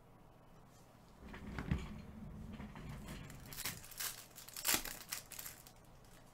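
Foil trading card pack crinkling as it is torn open, with sharp crackles about one and a half seconds in and again near five seconds.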